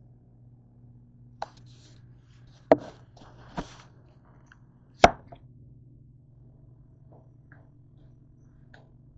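A few sharp knocks and clunks, the loudest about three seconds in, as the camera is handled and set down on the kitchen countertop, with a few faint ticks later. A steady low hum runs underneath.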